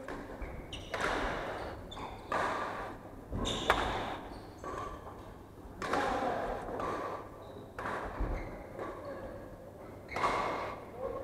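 Badminton rally: rackets strike the shuttlecock every second or two with sharp, echoing hits, mixed with players' footsteps thudding on the wooden court floor.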